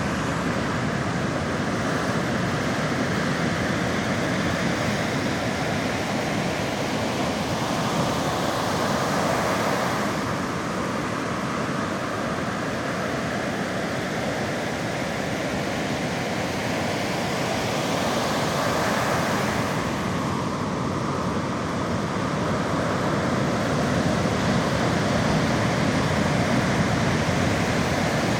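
Sea waves breaking and washing on the shore, a steady rushing that swells and eases slowly every several seconds.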